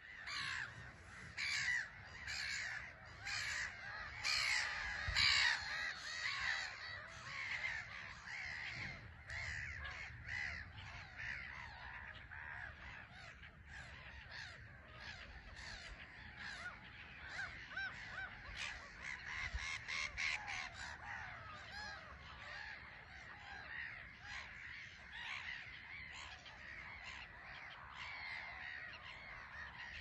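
A colony of black-headed gulls calling, many harsh overlapping calls at once. The calling is busiest and loudest in the first several seconds and carries on more thinly after that.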